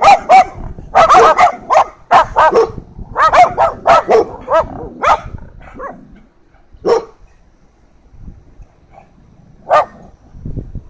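A dog barking in quick, loud bursts right at the microphone for about five seconds, then two more single barks with pauses between them.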